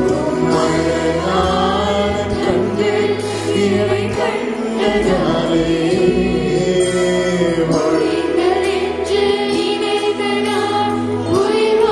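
Children's choir singing a worship song, backed by a band with keyboard.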